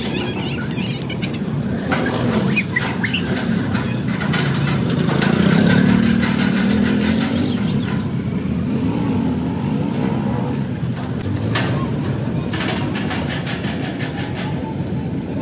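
Steady low mechanical rumble, like an engine running nearby, swelling about five to seven seconds in. A few light metallic clicks come from fittings being handled and screwed into the welded bosses of a steel air-compressor tank.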